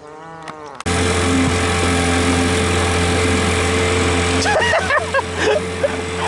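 An engine running steadily, cutting in abruptly about a second in, with a few short chirps near the five-second mark.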